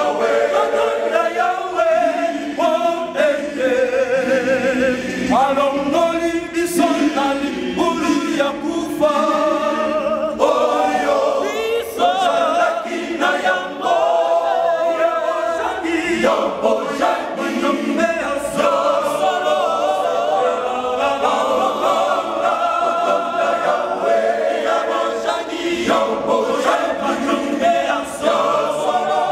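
Men's choir singing a hymn in harmony, a cappella.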